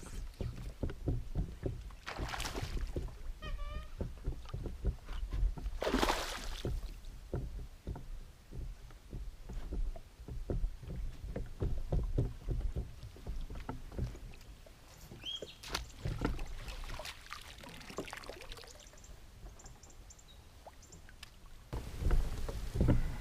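Fishing kayak on the water: a run of small knocks and clicks against the hull and gear over a low rumble, with two brief swishes of water. A bird gives a short series of falling chirps a few seconds in.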